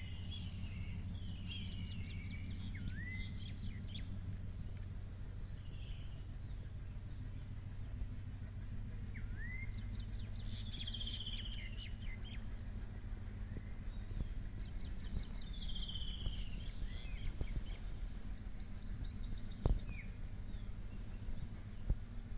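Birds chirping and whistling, short rising calls and quick falling notes, over a steady low rumble. A single sharp thump sounds near the end.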